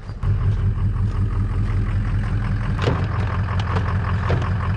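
Truck engine running steadily, with a few sharp clicks over it.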